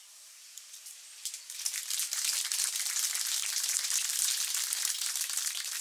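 Crowd applauding, a dense crackle of many hand claps starting about a second and a half in, thinned and harsh from heavy high-pass filtering of the recording.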